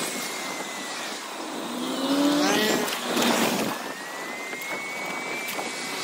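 Sped-up ambient sound of a bicycle ride: a steady rush of wind and rolling noise, with a thin high whine and a few brief, chirpy sliding sounds about two to three seconds in.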